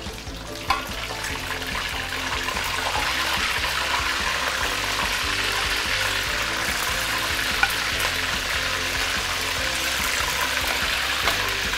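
Chicken pieces sizzling in smoking-hot oil in a stainless steel wok during a second, high-heat fry. The sizzle builds over the first few seconds as more pieces go in, then holds steady, with a couple of light clicks.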